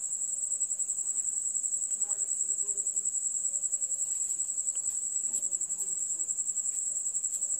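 A cricket chirping in a steady, rapidly pulsing high-pitched trill.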